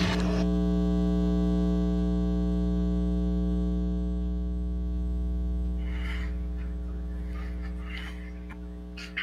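Steady electrical mains hum with many overtones in the audio feed, slowly getting quieter, with faint rustling about two-thirds of the way in.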